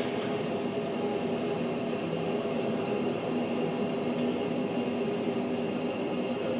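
Steady hum and whine of airliner engines on an airport apron, many held tones over a constant rush of noise.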